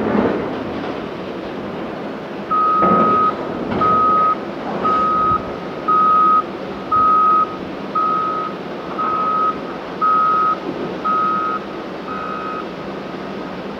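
CAT 988K XE wheel loader reversing: its back-up alarm beeps ten times at one steady pitch, about once a second, over the steady running of its diesel engine. The beeping stops near the end as the machine finishes backing up.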